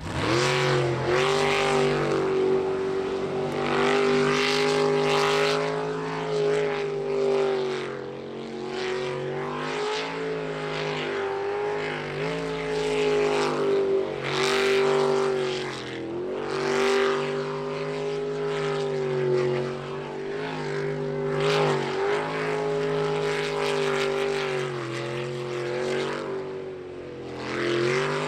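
Jet sprint boat engine running at high revs, its pitch dipping and climbing again every couple of seconds through the course.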